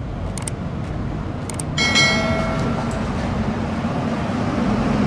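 Lenco armored truck driving slowly on a street, its engine giving a steady low rumble. About two seconds in comes a brief high squeal made of several steady tones, with a few light clicks just before it.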